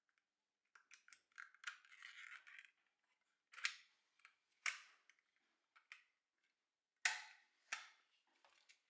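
Handling of a Soviet Vilia film camera while loading film: a soft rustle of film and plastic for the first few seconds, then a few sharp clicks of the camera's parts. The loudest is a pair of snaps about seven seconds in, as the hinged back is shut.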